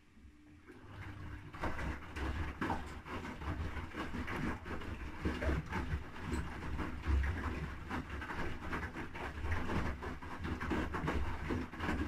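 Haier HW80-B14979 front-loading washing machine drum starting to turn after a pause, about a second in, with a low motor hum under wet laundry sloshing and tumbling in water.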